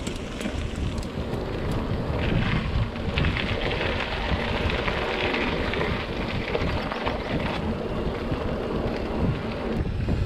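Wind buffeting a bike-mounted or rider-worn camera's microphone while riding a mountain bike, with steady rumble and scattered rattles from the bike on the trail.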